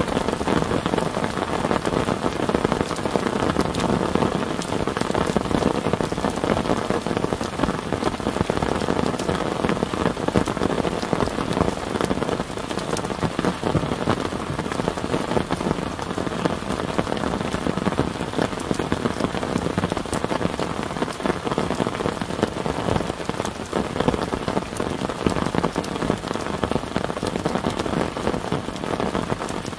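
Heavy rain falling steadily on a clear plastic tarp shelter and wet ground: a dense, even hiss full of fine drop ticks.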